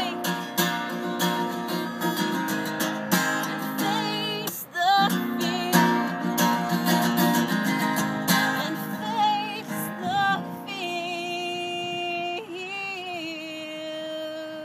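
A woman singing over a strummed steel-string acoustic guitar. About ten seconds in the strumming stops, and she holds one long final note over the ringing chord.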